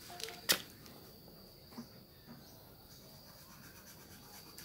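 Quiet background with a faint steady high-pitched tone like chirping insects. About half a second in comes one sharp click as the brush cutter's handle and throttle lever are handled.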